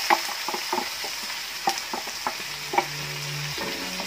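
Mung beans and chicken sizzling in a stainless steel wok over a gas flame, with a wooden spatula stirring and scraping them, clacking against the pan now and then.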